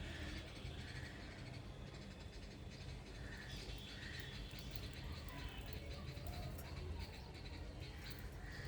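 Small birds chirping and calling in short, separate notes, with scattered light ticks and a steady low rumble underneath.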